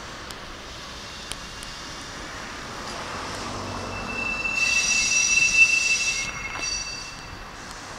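Keikyu 600 series four-car electric train moving slowly over depot track, with a few light rail-joint clicks in the first two seconds. From about three and a half seconds in, the wheels set up a high, steady squeal that is loudest around five to six seconds and dies away near the end.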